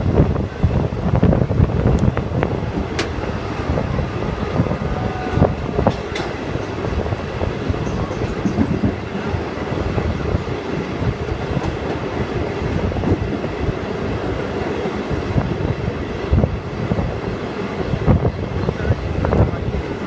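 Suburban electric train running along the track: a steady rumble with scattered short knocks from the wheels.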